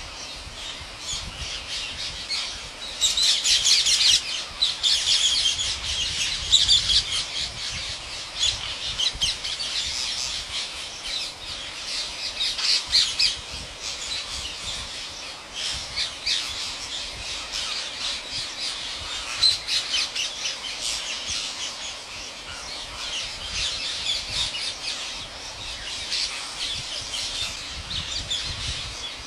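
A large flock of rose-ringed parakeets calling all at once: a dense, unbroken chorus of many overlapping high-pitched calls, loudest a few seconds in.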